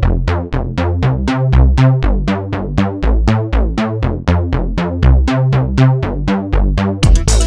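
Electronic background music with a steady drum-machine beat: bright, quickly fading plucked synth notes about four a second over a moving bass line. Near the end a busier drum pattern with cymbals comes in.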